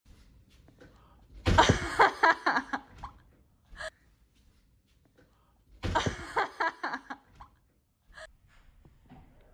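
Two loud bursts of a person laughing and gasping in excitement, the first about a second and a half in and the second about six seconds in, with faint sounds between.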